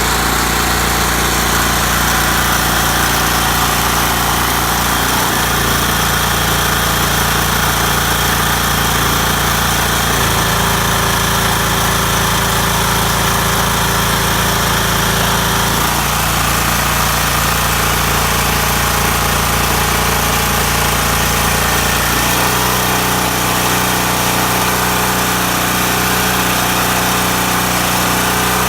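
Champion portable generator's engine running steadily under load from an electric heater. Its note shifts abruptly about five, ten, sixteen and twenty-two seconds in as the heater's load settings are changed.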